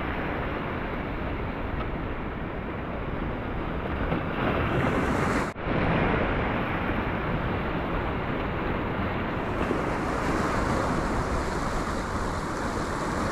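Sea surf breaking and washing over shoreline rocks, with wind buffeting the microphone. The sound cuts out for an instant about halfway through.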